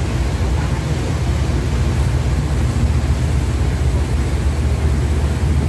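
Harbour ferry's engine running steadily, a low drone heard from inside the passenger cabin, with a steady hiss of wind and water over it.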